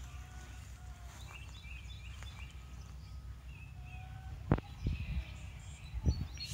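Outdoor ambience of small birds chirping, short scattered calls over a steady low rumble. A few dull thumps about four and a half and six seconds in are the loudest sounds.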